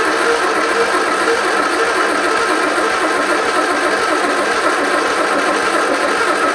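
1973 MG Midget's four-cylinder engine being cranked over by the starter in a steady whir, holding one even pitch and level without catching and revving up. It is a test of a distributor that had been installed 180 degrees out, with the plug wires rearranged to match, and the engine is not running right.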